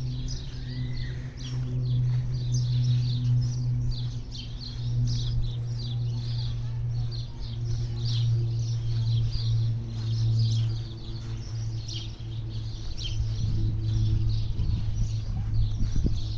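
Many small birds chirping in quick, short high notes, over a steady low hum.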